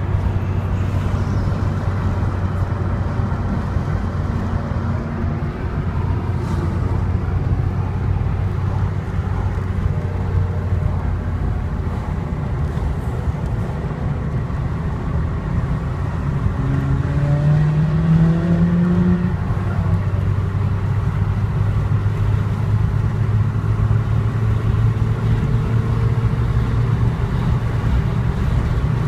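Car engine and road noise running steadily, with one short rising rev about two-thirds of the way through.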